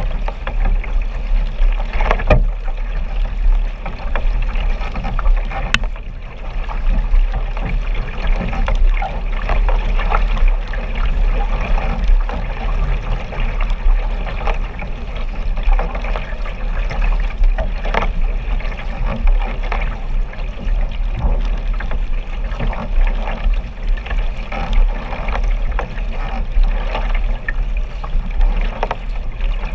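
Water sloshing and splashing close by as sprint kayak paddles dig in and pull through the water, with irregular splashes over a constant low rumble of water and wind on the microphone.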